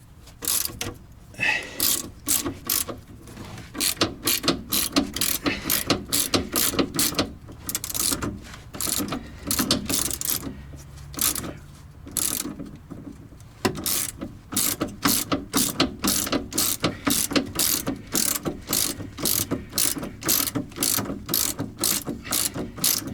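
Hand ratchet with a 14 mm socket clicking in repeated back-and-forth strokes, a few a second, as it backs out a rear shock absorber mounting bolt that has just been broken loose; it pauses twice briefly.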